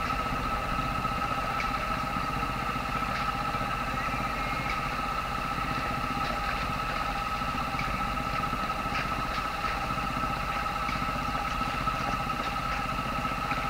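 Sailboat's engine running steadily at low speed: a continuous drone with a steady high whine over a low rumble.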